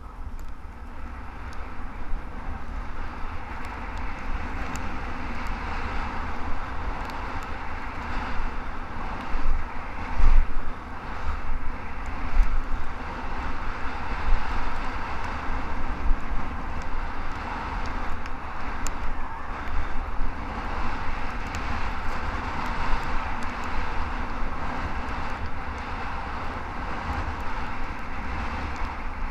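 Wind buffeting a helmet-mounted camera at skiing speed, over a steady hiss of skis sliding and scraping on snow, with louder gusts around ten and twelve seconds in.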